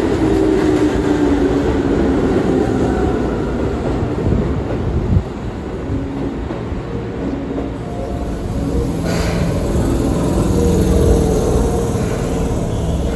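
Keihan 6000 series eight-car electric train pulling into the platform and braking, its traction motors whining and falling in pitch as it slows. There is a thump about five seconds in and a short hiss about nine seconds in.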